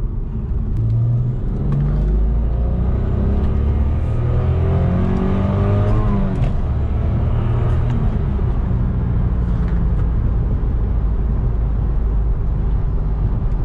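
Stock Toyota Supra JZA80's twin-turbo 2JZ-GTE straight-six heard from inside the cabin. It pulls with rising pitch for about five seconds, drops sharply about six seconds in, then runs steadily at cruise over road noise.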